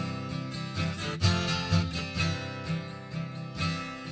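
Background song music: an instrumental gap between sung lines, with strummed acoustic guitar and bass.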